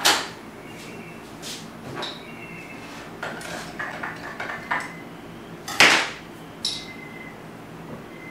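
Metal tools clinking and knocking against a glass measuring cup and the workbench as the stirrer is lifted out of the hot liquid plastisol and an aluminium hand injector is set into the cup. A sharp knock comes right at the start and a louder one about six seconds in, with lighter clicks between.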